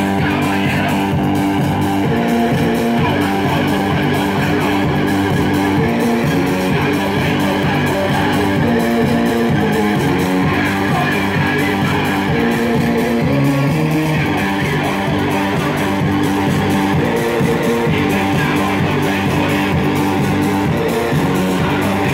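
Guitar-led music: strummed electric guitar chords over bass guitar, playing continuously.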